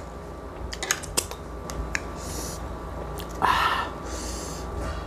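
Kitchen knife cutting into the crispy crackling skin of a roast pig's head (lechon baboy): scattered sharp clicks and crackles, with the loudest crunch a little past the middle.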